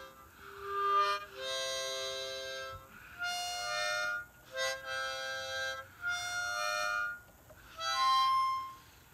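Harmonica played haltingly by an out-of-practice player: about seven separate held chords, each up to a second or so, with short pauses between them.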